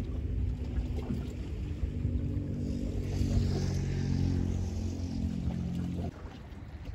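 A motorboat engine running with a steady low hum, cutting off suddenly about six seconds in.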